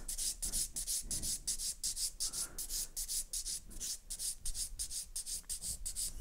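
Hand nail file, a 180-grit Zebra file, rasping back and forth on an acrylic-gel nail in quick, even strokes, about four or five a second, to thin the product and blend it flush with the natural nail.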